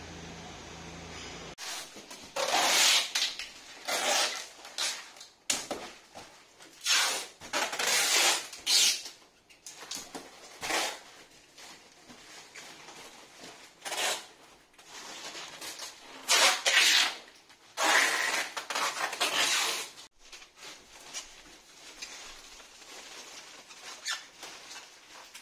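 Repeated bursts of rustling and crinkling, each lasting under a second, from brown paper furniture padding being handled and wrapped around furniture. A steady low hum runs only for the first second and a half.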